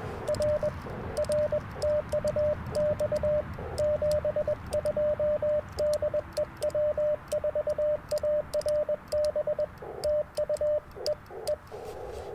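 Morse code being sent on an Icom IC-705 with a twin-paddle key: a single steady-pitched sidetone keyed in rapid dits and dahs, with light paddle clicks along with the elements. Receiver hiss fills a few short gaps and returns when sending stops near the end.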